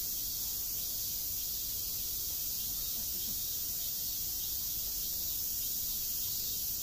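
Steady, high-pitched drone of an insect chorus, with faint distant voices underneath.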